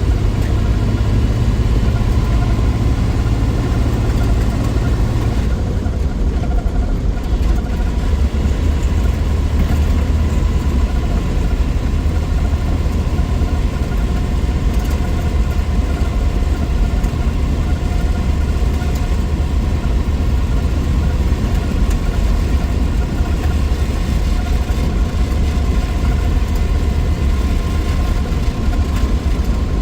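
1963 Willys Wagon's Tornado 230 overhead-cam inline-six running as the wagon drives, a steady low engine drone. About five seconds in, the engine note drops lower and then holds steady.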